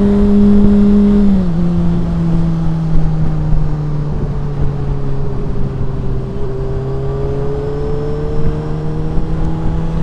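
Honda CBR600RR sport bike's inline-four engine running at a steady speed, heard with wind noise from a helmet microphone. About a second and a half in, the engine pitch drops as the rider shifts up, then holds steady and slowly climbs again as he speeds up over the last few seconds.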